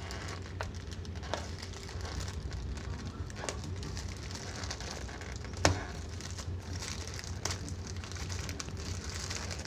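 Plastic courier mailer bag crinkling and rustling as it is picked at and pulled open by hand, with faint scattered crackles and one sharper click a little past halfway.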